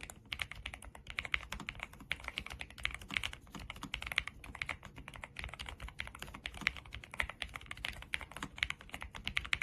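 Fast, continuous typing on a NuPhy Air75 V3 low-profile mechanical keyboard: a dense, unbroken run of key clicks.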